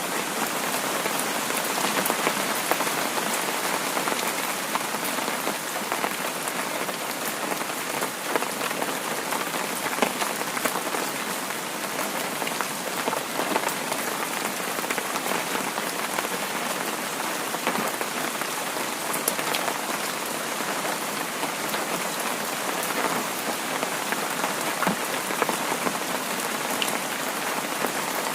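Heavy rain falling steadily, an even hiss dotted with many sharp little ticks of individual drops striking.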